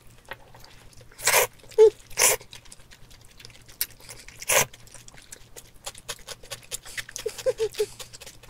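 Jajangmyeon noodles slurped up with chopsticks: three short, sharp slurps, the loudest in the first half and the last about four and a half seconds in. Between them, chewing with small clicking mouth and chopstick sounds and a couple of brief hums.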